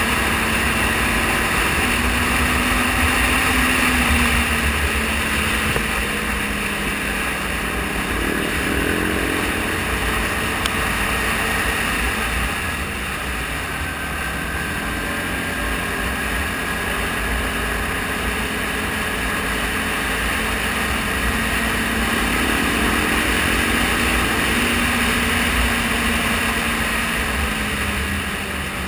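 ATV engine running at speed on a gravel road, with wind rumbling on the microphone. The engine pitch climbs about eight seconds in and again near the end as the rider speeds up.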